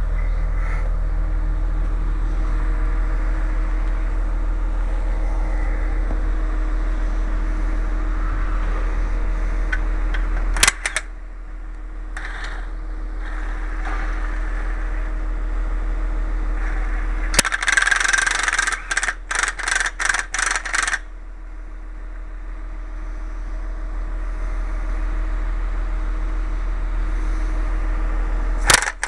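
Steady low machine hum with camera-handling rubs and scrapes; the level drops suddenly about a third of the way in and again past two-thirds, then slowly creeps back up each time.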